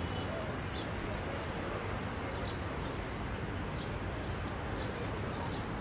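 City street ambience: a steady low hum of distant traffic, with a few faint bird chirps now and then.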